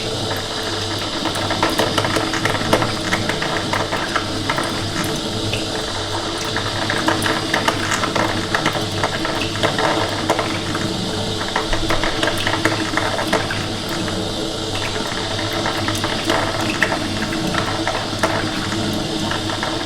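Coffee machine running: a steady low hum under a dense, crackling spatter of small clicks and ticks.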